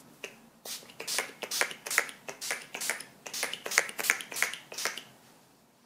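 Pump bottle of Urban Decay All Nighter makeup setting spray spritzed over and over: a quick run of short sprays, about four a second, stopping about five seconds in.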